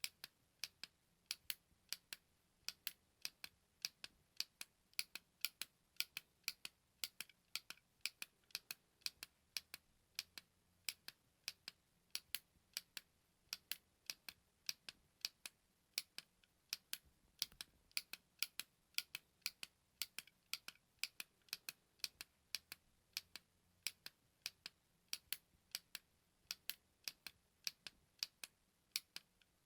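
A button clicked over and over: sharp, dry clicks about three to four a second at uneven spacing, many coming in close pairs.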